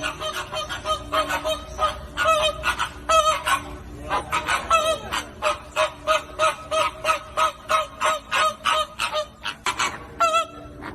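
A flock of flamingos honking: many short, nasal, goose-like calls overlapping, about three to four a second.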